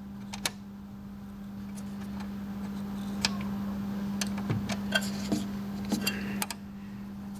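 Irregular small clicks and rattles from a syringe pump's carriage clasp being worked by hand, the clasp sticking on the lead screw instead of springing back. A steady low hum runs underneath.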